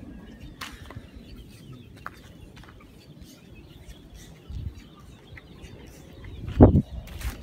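Chickens clucking faintly in short, scattered calls, with a loud low thump a little over six seconds in.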